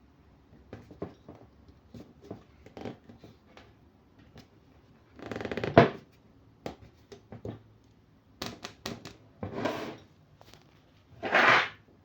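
Hands handling a DC moulded-case circuit breaker and its packaging: scattered light clicks and knocks, with three short scraping or rustling sounds, the first ending in a sharp knock about six seconds in.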